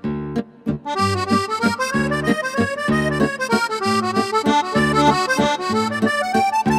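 Instrumental background music: a melody that rises and falls over repeated low bass notes in a steady rhythm.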